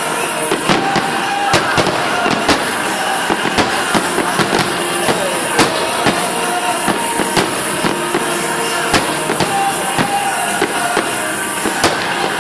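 Fireworks display: a rapid, irregular series of sharp bangs and cracks from exploding shells, several each second.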